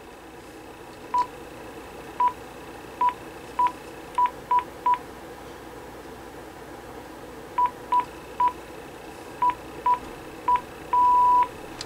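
Panasonic KX-TG9471 base unit making key-press beeps: about a dozen short beeps at one pitch, irregularly spaced, in two runs with a pause of nearly three seconds between, as the menu and navigation buttons are pressed. Near the end comes a single longer beep of about half a second, the phone's confirmation tone as the voice prompt setting is saved.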